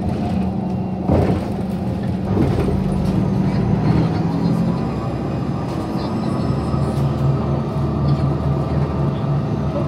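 A motor vehicle running: a steady low engine drone whose pitch drops slightly about halfway through, with a few brief knocks.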